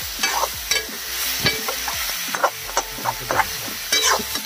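Chicken pieces frying in oil in a metal wok during the bhuna stage with spices: a steady sizzle, with a metal spatula scraping and knocking against the pan in irregular strokes as the meat is stirred.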